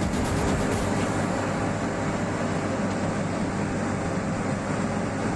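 Steady vehicle engine rumble mixed with road traffic noise.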